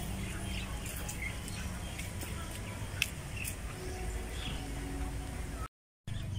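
Quiet open-air ambience: a steady low rumble with a few faint bird chirps scattered through it. The sound cuts out completely for a moment near the end.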